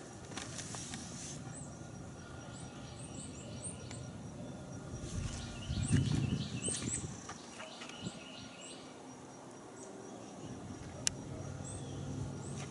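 Small birds chirping repeatedly over quiet outdoor background noise, with a brief low rumble about six seconds in.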